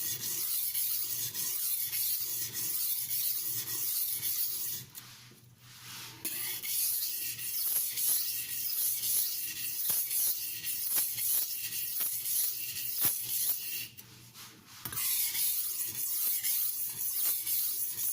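Steel kitchen knife blade scraped back and forth over the 320-grit side of a water-soaked silicon carbide whetstone, a continuous gritty rasp. It stops briefly twice, about 5 and about 14 seconds in. The soft, friable stone is shedding abrasive as it cuts.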